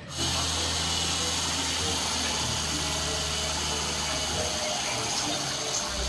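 Diesel dump truck's engine running steadily as its hydraulic hoist tips the loaded bed, with a low hum under a continuous rushing hiss.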